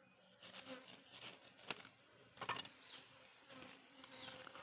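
Faint rustling and crinkling of a plucked chicken carcass being handled on a banana leaf, with two sharp clicks in the middle. A faint high buzzing comes in near the end.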